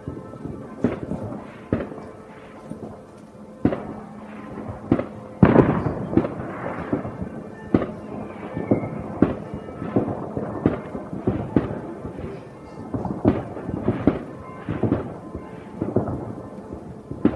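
New Year's fireworks and firecrackers going off, a steady run of irregular bangs and crackles, the loudest about five seconds in with a long rumbling tail. Church bells ring beneath the bangs in the first few seconds.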